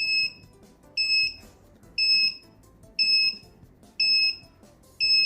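Electronic buzzer on a microcontroller door lock giving short high-pitched beeps, one per second, six times. It is sounding the lock's 10-second lockout countdown after a fourth wrong password.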